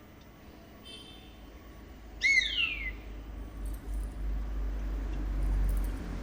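A crane calling once about two seconds in: a short, loud cry that glides downward. A faint high chirp comes about a second in, and a low rumble builds in the second half.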